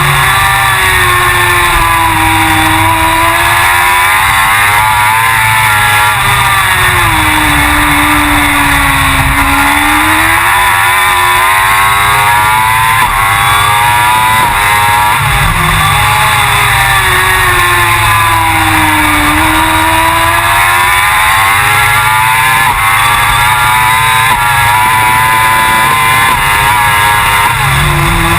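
Suzuki GSX-R1000 World Superbike's inline-four engine running hard, its revs swinging up and down over several seconds at a time as it is ridden around the circuit.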